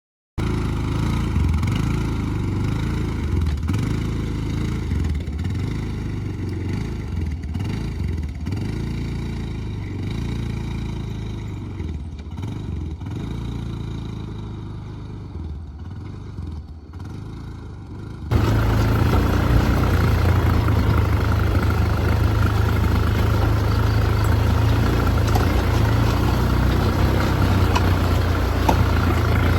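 All-terrain vehicle (ATV) engine running during a ride, rising and falling with some clatter. About two-thirds of the way in it cuts abruptly to a louder, steadier engine drone.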